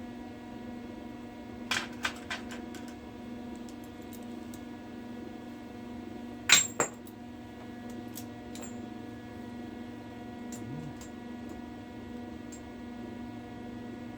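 A few light metallic clinks about two seconds in, then a louder double clank of metal on metal midway, over a steady electrical hum.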